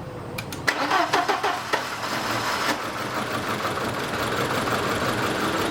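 2003 VW Passat's 1.8-litre turbocharged four-cylinder engine cranks briefly, catches about two seconds in, then idles. It is misfiring with two of its four cylinders not firing, which the owner puts down to two failed ignition coils.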